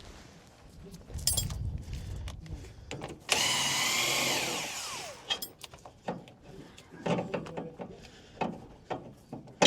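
A power drill or driver whines at speed for about a second and a half, then spins down with falling pitch, on the bolts of the front leaf spring shackles. Clanks and knocks of metal parts before and after it, with a sharp knock at the end.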